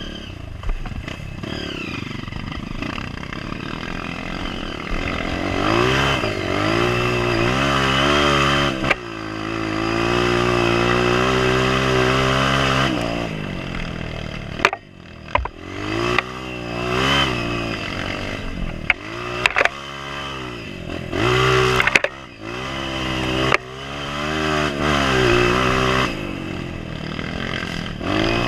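Honda CRF230F trail bike's single-cylinder four-stroke engine, heard from the bike itself, revving up and easing off again and again with a few sudden drops as the throttle closes or a gear changes. Sharp knocks come in from the bike over bumps.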